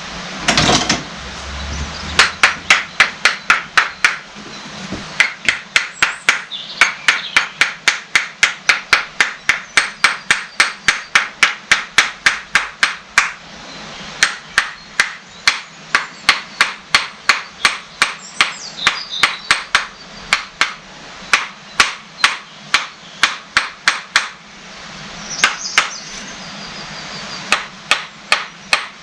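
Rapid light tapping on the hydraulic pump's housing, about four taps a second in long runs with brief pauses, to drive the pump body down onto its locating pins.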